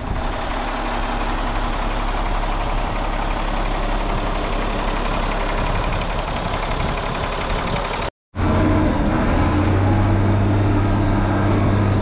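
Ford TW-35 tractor's six-cylinder diesel engine running steadily. About eight seconds in, the sound drops out for a moment and comes back heard from inside the cab as a smoother, even-pitched low hum.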